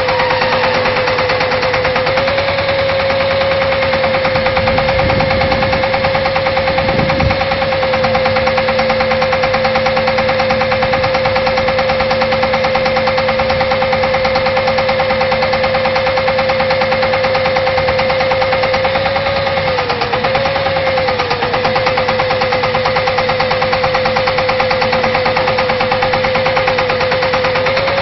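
Pneumatic air-hammer well-drilling rig running: rapid, continuous hammering over a steady whine, which wavers briefly about two-thirds of the way through.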